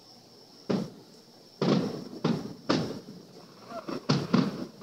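Aerial firework shells bursting in a quick, uneven series of about seven bangs, each trailing off in an echo.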